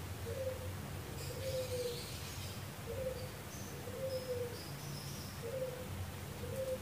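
Baby macaque whimpering in short, soft cooing calls, about one a second, each a brief tone that dips slightly at the end.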